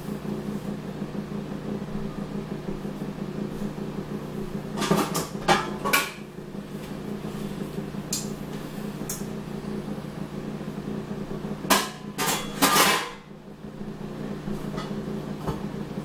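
Kitchenware clattering and knocking in two short bursts, a few knocks about five seconds in and a longer rattle of knocks about twelve seconds in, over a steady low hum.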